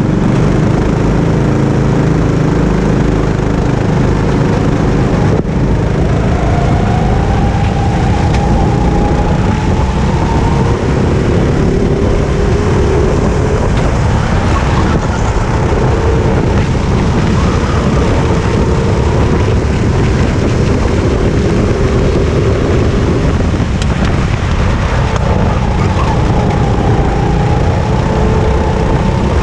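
Onboard sound of a Sodi RT8 rental go-kart's engine running under throttle, its pitch rising and falling with speed through the corners, with other karts' engines running alongside.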